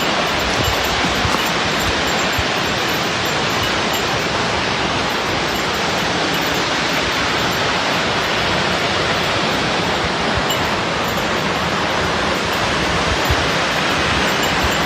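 The Akiu Great Falls, a 55-metre waterfall, pouring down: a loud, steady rush of falling water with no change in level.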